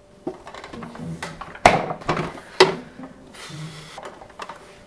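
Household handling noises: two sharp knocks about a second apart, a door or cupboard being shut, among lighter clicks.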